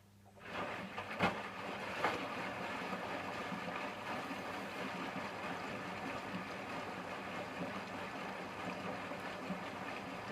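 Hotpoint washing machine starting up with a sudden, steady rush of water about half a second in, with a couple of clunks soon after, while water is still in the drum near the end of its cotton cycle.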